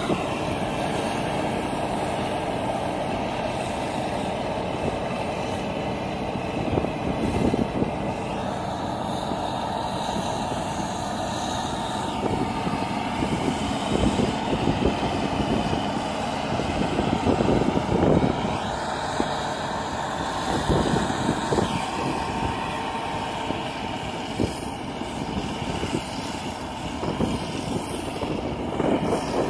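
New Holland 8080 combine harvester running as it cuts and threshes ripe rice: a steady machine drone, with uneven low surges now and then.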